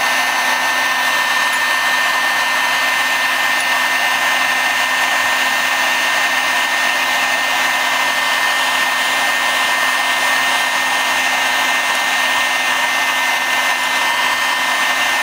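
Electric heat gun blowing steadily, an even rush of hot air with a faint steady whine, shrinking heat-shrink tubing onto the leads of a coax pigtail cable.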